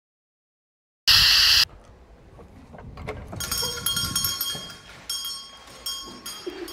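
Dead silence for about a second, then a short, loud burst of noise. About three seconds in, a bell starts ringing with bright metallic chiming and keeps on for about three seconds before stopping.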